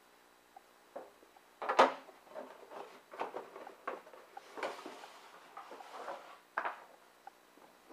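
Handling noise of small hard objects: a sharp knock about two seconds in, then irregular light clatter and rustling, and another sharp click near the end.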